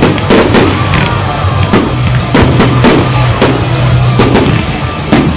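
Fireworks display: aerial shells bursting in a quick run of bangs and crackles, several a second. Music with a drum beat plays loudly underneath.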